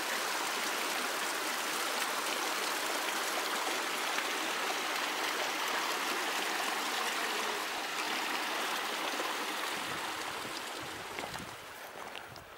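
Steady rush of running water, easing down near the end.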